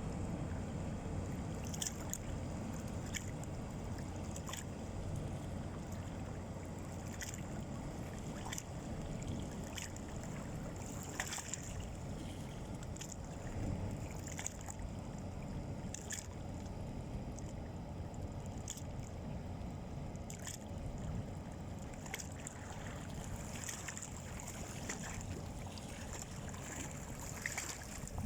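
Tanker ship under way: a steady low engine rumble. Short high chirps or ticks repeat about once a second or so above it.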